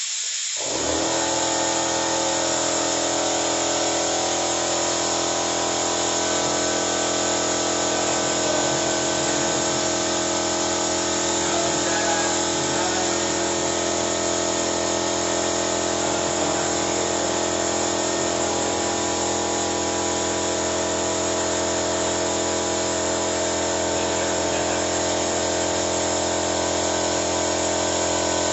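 Small air compressor switched on about half a second in, then running with a steady hum and whine, supplying compressed air through the hose to the engine carbon-cleaning tool.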